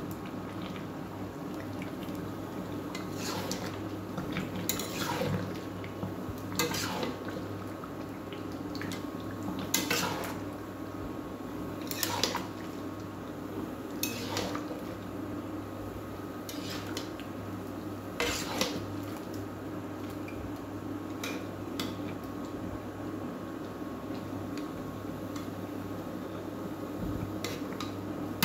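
Metal spatula stirring chicken and potato curry in a metal kadai, scraping and clinking against the pan about a dozen times at uneven intervals, over a steady low hum.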